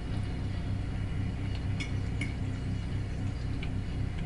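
A fork clinking lightly against a ceramic plate a few times, over a steady low hum.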